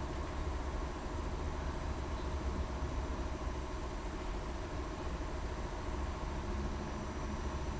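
Mitsui Seiki machining center running with a steady mechanical hum, strong in the low end, with a few faint steady whines above it.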